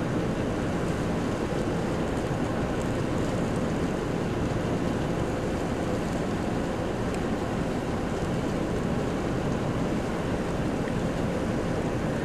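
Large fuel fire on a tanker truck burning with a steady, even rushing noise, with a few faint pops.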